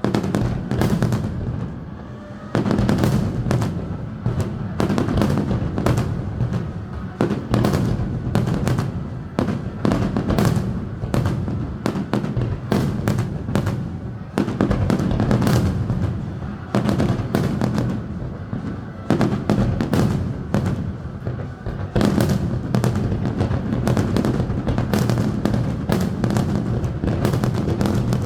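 Fireworks display going off in rapid, continuous volleys: dense bangs and crackles, several a second, after a brief lull about two seconds in.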